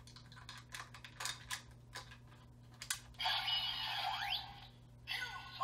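Plastic clicks of Ryusoul soul pieces being fitted into the Max Ryusoul Changer toy, then the toy's small speaker plays an electronic sound effect with a sweeping tone about three seconds in, and another starts just before the end.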